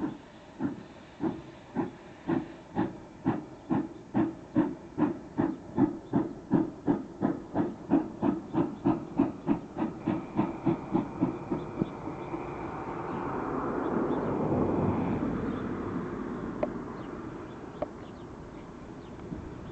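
GWR steam railmotor No. 93 pulling away, its exhaust beating in sharp chuffs that quicken steadily as it gathers speed. The beats fade out about twelve seconds in, and a rushing hiss swells, peaks and dies down.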